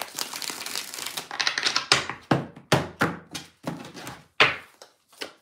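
A deck of tarot cards being shuffled by hand: about a second of continuous rustling, then a dozen or so irregular sharp slaps and clicks of the cards against each other.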